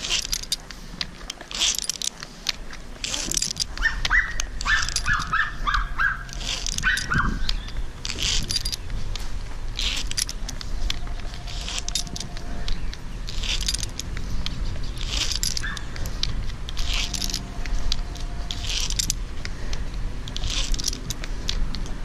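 Climbing rope and metal hardware rustling and clinking in a steady rhythm, about one stroke every one and a half seconds, as a climber ascends a single rope. A dog barks a few times about four to seven seconds in.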